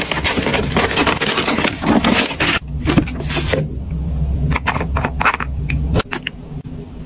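Tissue paper rustling and crinkling as hands fold it back in a cosmetics gift box, dense for the first few seconds, then a few shorter, lighter rustles as the cream jar is lifted out and handled.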